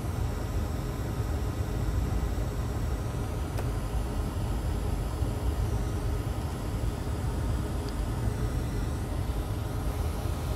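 Hot air rework station blowing steadily: an even rush of air with a low rumble underneath.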